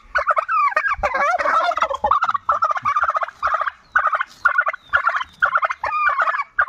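Domestic turkey gobbling: a rapid, rattling warble that runs almost without break for the first couple of seconds, then breaks into a quick series of short gobbles, about two or three a second.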